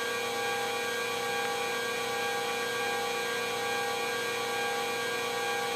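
Eurocopter EC135 helicopter's twin turbine engines and rotor drivetrain running at takeoff power in the climb, a steady hum with several constant higher whines, heard from inside the cockpit.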